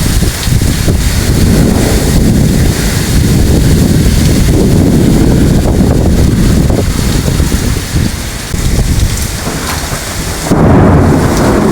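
Thunderstorm: rain falling hard with low rolling thunder, growing louder about ten and a half seconds in.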